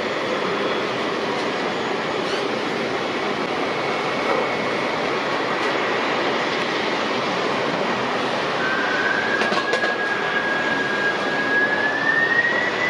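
The four General Electric CF6-80C2 turbofans of a Boeing 747-400 freighter running on the runway for departure: a steady jet rumble with a thin whine on top. About two thirds of the way in a higher whine comes in and rises in pitch as the engines spool up for the takeoff.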